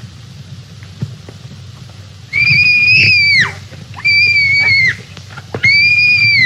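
A woman screaming three times, each a long, high cry held at one pitch for about a second and falling away at the end, starting about two seconds in. Before the screams there are only a few soft knocks of a scuffle over low hiss.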